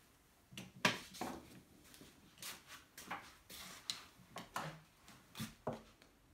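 Irregular clicks and knocks of hard plastic and metal parts being handled and set down on a tabletop, as a disassembled power tool is fitted back into its opened plastic housing.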